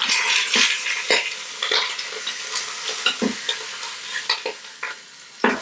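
Turkey wings sizzling in hot oil in an Instant Pot's inner pot on the sauté setting, as they are turned with tongs that click and knock against the pot. The sizzling is loudest in the first second and eases off later, with a sharp knock just before the end.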